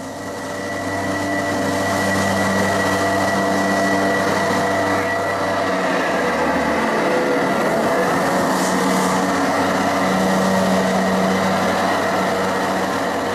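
Loud, steady droning noise with several held tones that drop out and return, an experimental drone or noise piece played over a loudspeaker. One low tone stops about halfway through.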